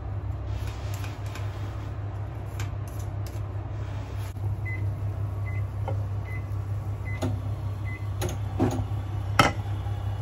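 Steady low hum of a kitchen appliance, with five short high beeps evenly spaced just under a second apart in the middle. Near the end come a few sharp knocks of a utensil on the frying pan, the loudest about nine seconds in.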